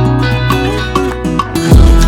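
Background music with guitar-like plucked notes over a steady bass, a deep drum beat coming in near the end.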